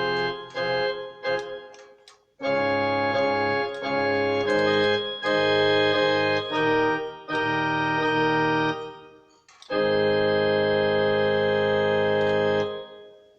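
Casio CTK-3500 keyboard playing its Church Organ 2 preset: a few short staccato notes, then sustained organ chords that change every second or so, and finally one long held chord that stops near the end.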